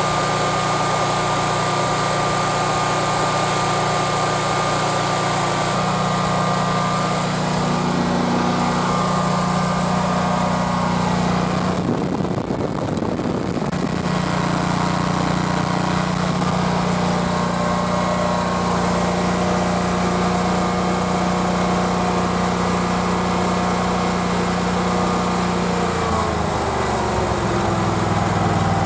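Generac GP17500E portable generator's 992cc overhead-valve engine running steadily. Near the end one of its tones glides down and the hum shifts lower.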